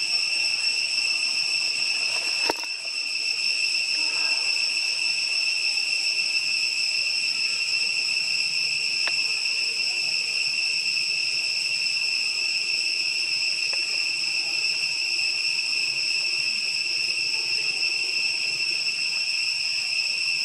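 Steady, shrill drone of insects calling without a break, a high pitched tone with overtones. A single sharp click about two and a half seconds in.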